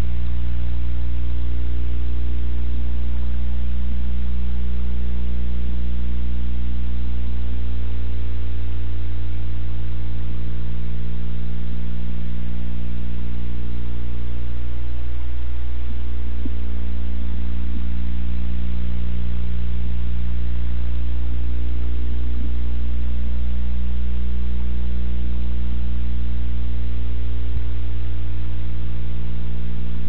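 Loud, steady electrical mains hum with evenly spaced overtones, picked up in the hive camera's audio.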